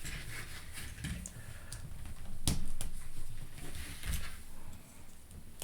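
Plastic Lego pieces being handled and clicked together: a run of small clicks and rattles, with one louder snap about halfway through.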